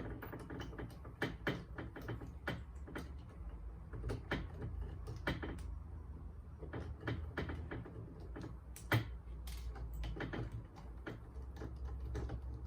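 Irregular small clicks and knocks of metal lock hardware being handled and screwed into place on a gate, several a second.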